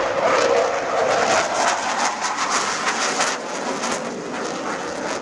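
Fighter jet engine roar with a ragged crackle, loudest in the first few seconds, then fading as the jet moves away.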